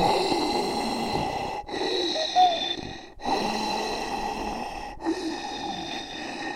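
Zombie sound effect: a raspy, gasping voice groaning and breathing in three takes with short breaks between them, one with a brief high squeak in the middle.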